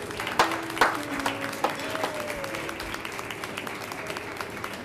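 A group of people applauding. The clapping begins with a few loud claps in the first second, then carries on steady and a little softer.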